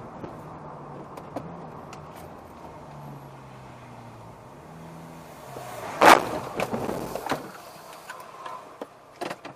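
Car engine and road noise inside a moving car, the engine note rising and falling. About six seconds in comes a loud sudden bang, followed by a few smaller knocks and clicks.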